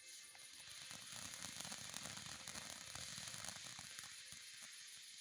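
A firework hissing with many small crackles; the hiss sets in suddenly.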